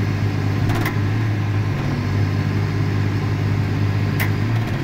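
Case MX255 Magnum tractor's six-cylinder diesel engine running steadily, heard from inside the cab, with two light clicks.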